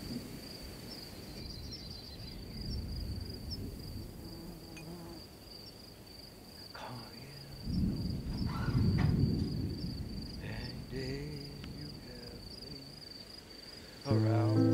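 Crickets chirping steadily in a fast, high pulse. About eight seconds in, a louder low rush of noise rises for a couple of seconds, and music with clear picked notes comes in just before the end.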